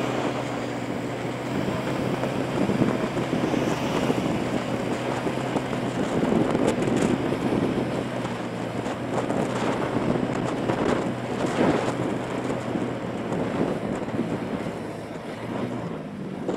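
Motorbike engine running steadily while riding, with wind buffeting the action camera's microphone in gusts.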